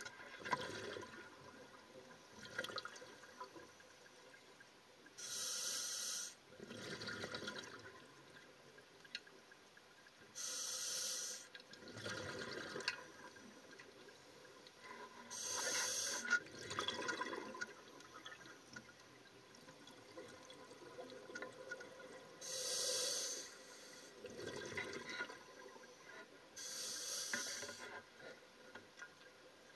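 Scuba diver breathing through a regulator, heard underwater: five inhalations, each a hiss of about a second, each followed by a longer bubbling exhalation, in a slow cycle of roughly five seconds.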